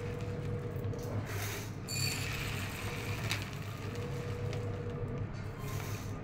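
Brown rice grains pouring from a plastic bag into a small steel cup, over a steady low hum. A brief ringing note sounds about two seconds in.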